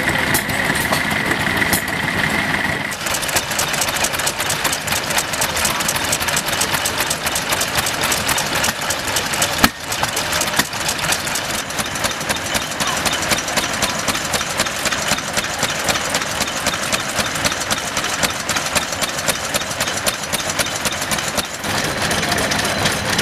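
Vintage stationary engines, including a Ruston, running and firing in an even, rapid rhythm. A steady high whine sounds over the first three seconds, and the sound changes abruptly about 3 and 10 seconds in as one engine gives way to the next.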